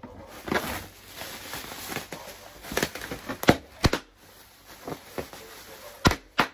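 Green plastic bubble-wrap packaging crinkling as it is pulled from a cardboard box and squeezed by hand, with several sharp pops, the loudest about three and a half seconds in, near four seconds, and twice near the end.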